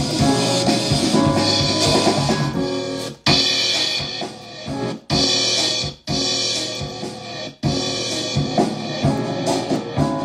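A hip-hop beat in progress plays back from music production software, with drums, bass and melodic parts. The playback cuts off abruptly several times and starts again each time.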